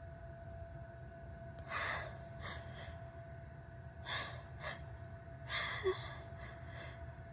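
A woman's sharp, gasping breaths and sniffs through a tickling nose, several in a row: pre-sneeze inhalations while she hovers on the edge of a sneeze that doesn't come.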